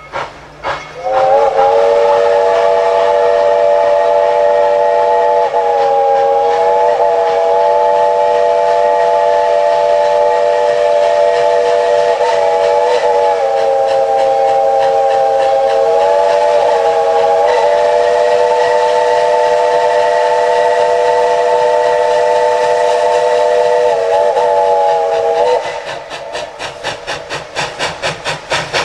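A steam locomotive's chime whistle sounds in one long blast of about 25 seconds, several notes together, with a few slight wavers in pitch. As the whistle stops, the locomotive's rapid exhaust chuffs take over, with steam hiss.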